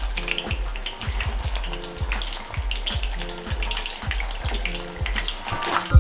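Battered chicken lollipops deep-frying in hot oil in a kadhai, crackling and sizzling steadily as they are turned over with a wire spider strainer. Background music with a steady beat plays underneath.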